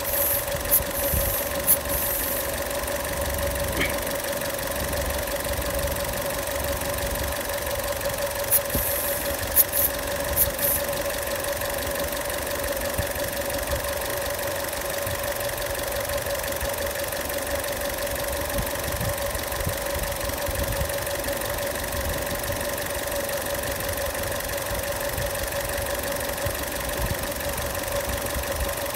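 Car engine idling steadily with a constant whine, running for a combustion-leak test of its coolant; the engine's head gasket is sound. A few faint clicks come about a second in and again around nine seconds in.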